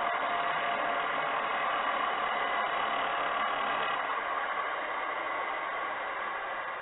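Angle grinder running steadily as its cutting disc grinds through a steel padlock, a dense, even whine; the sound stops abruptly at the very end.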